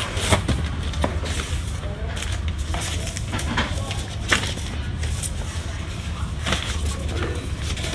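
Paper manuals and sheets rustling as they are handled and pulled from a cardboard box, with scattered short crinkles and knocks over a steady low hum.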